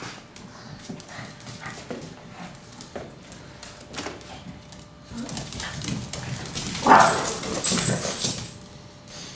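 Shih Tzus playing together: light tapping and scuffling, then a louder stretch of dog noises from about five seconds in that peaks sharply around seven seconds.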